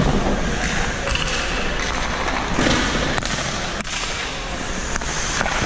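Steady rink noise with several sharp knocks of hockey gear on ice and boards.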